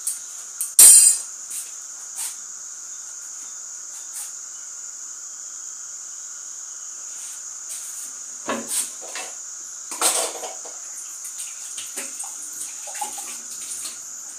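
Kitchen utensils and pots clattering a few times, loudest in one sharp clatter about a second in, with further knocks near 8.5 and 10 seconds, over a steady high-pitched background whine.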